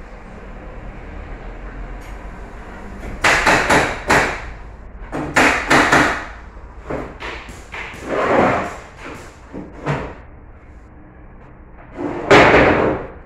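A pneumatic gun shooting fasteners into a pine frame, in a run of sharp knocks in quick pairs and clusters. Near the end comes a louder, longer wooden knock and clatter as a section of the frame is handled.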